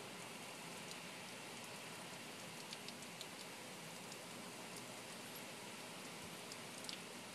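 Heavy rain falling in a steady hiss, with a few sharp ticks of drops around three seconds in and again near the end.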